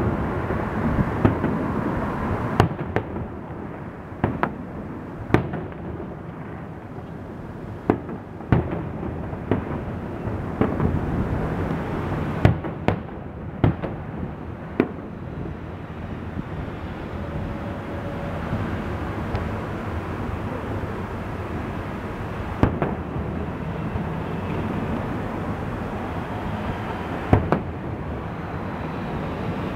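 Aerial fireworks display: sharp bangs of shells bursting at irregular intervals over a steady background rumble. The bangs come thickly for the first fifteen seconds or so, then thin out, with another near the end.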